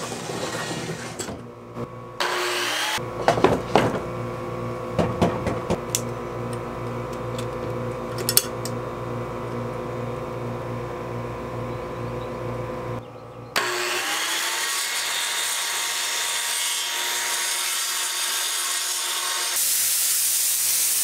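Circular saw cutting 3/8-inch plywood, the motor running steadily through long cuts. About two-thirds of the way in there is a short break, and the motor then spins up again into another cut, with a few clicks partway through.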